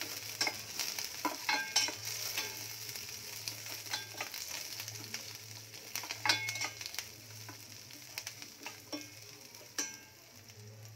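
Chopped onions and curry leaves sizzling in oil in a stainless steel pan while a spatula stirs them, scraping and clicking against the metal every second or two; this is the sauté stage after tempering mustard seeds and urad dal. The sizzle slowly dies down, over a low steady hum.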